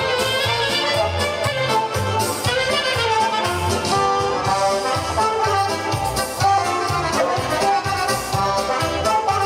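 Lively Romanian-style folk dance music, with brass and accordion playing over a steady beat.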